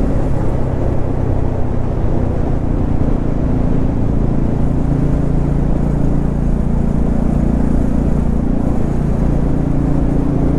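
Bajaj Pulsar N250's single-cylinder engine running steadily at a cruising pace, with wind rushing over the helmet microphone.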